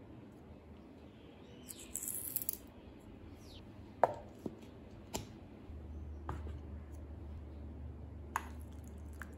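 Plastic lid of a steel mixer-grinder jar pressed shut with a sharp click about four seconds in, among a few lighter clicks and taps from handling the jar. A brief rustle comes about two seconds in.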